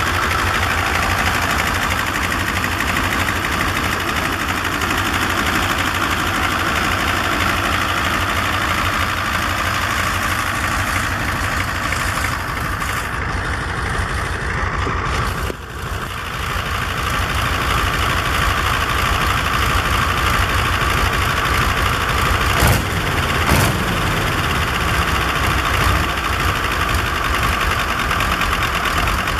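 A 1941 Guiberson T1020 nine-cylinder, 1021-cubic-inch radial diesel engine running steadily. The sound dips briefly about halfway through, and two sharp knocks come a little after two-thirds of the way.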